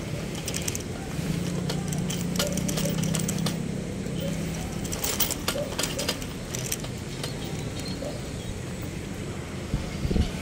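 Urban construction-site and traffic background: an engine hum, strongest in the first half, with scattered clicks and knocks throughout.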